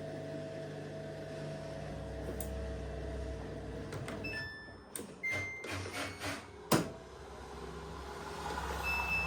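Samsung front-loading washing machine running its drum motor with a steady hum, which stops about four seconds in. A few clicks and knocks follow, with brief high tones and one sharp click. The drum only tumbles and fails to reach spin speed, and the machine then halts showing the tst code.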